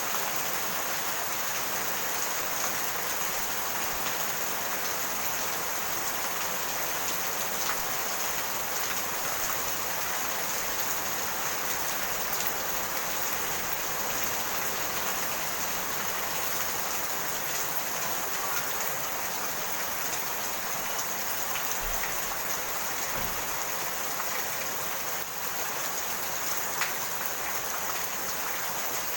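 Steady rain falling, a constant even hiss with scattered drop ticks.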